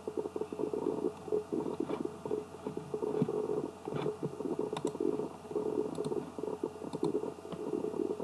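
A steady, fluttering low rumble of background noise, with a few sharp single clicks scattered through it, typical of a computer mouse being clicked.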